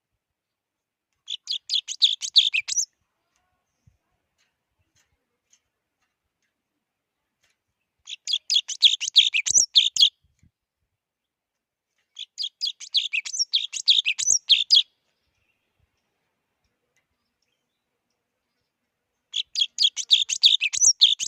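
Java sparrow singing: four bouts of rapid, high chirping notes, each about two seconds long, with silent gaps between. The last bout starts near the end.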